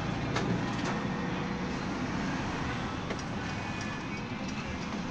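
Cabin noise inside a moving Mercedes-Benz Sprinter minibus: a steady mix of engine and road noise, with a few faint clicks.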